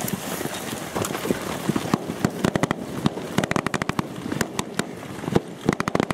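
Bursts of automatic gunfire: rapid, irregular sharp cracks in clusters, thickening from about two seconds in. This is covering fire for troops moving up on foot.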